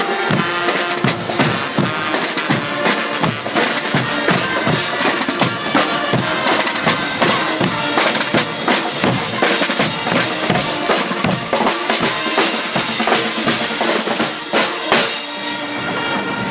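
Carnival Guggenmusik band marching and playing: snare and bass drums beat a steady rhythm, with brass playing over the drums.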